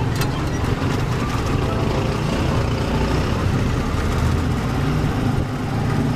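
Engine and road noise of a moving motorcycle tricycle, heard from inside the sidecar: a steady low engine rumble under constant road noise.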